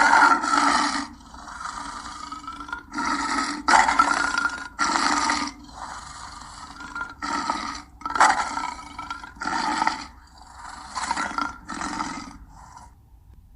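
Lion calling in a run of short, grunting roars, about one a second, louder calls alternating with quieter, longer ones.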